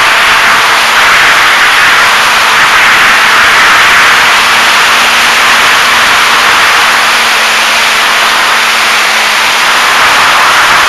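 Steady, loud rush of air and propeller noise from a radio-controlled model airplane in flight, picked up by a camera on its nose, with a faint steady motor hum beneath.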